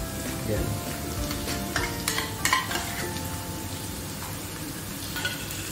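Onion, red bell pepper and canned light tuna in water sizzling in hot oil in a frying pan, with a couple of sharp clicks about two seconds in. Faint background music plays under it.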